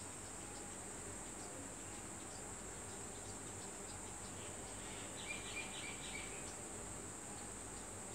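Crickets trilling steadily at a high pitch, with a short run of quick bird chirps a little past five seconds in.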